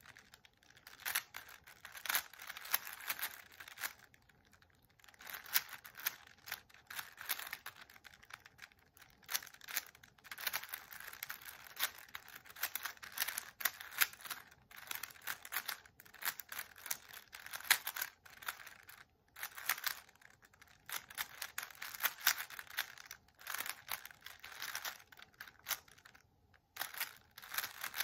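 Rapid clicking and clacking of a plastic 3x3 Rubik's cube, its layers turned quickly by the fingers during a speedsolve. The clicking comes in bursts, broken by a few short pauses.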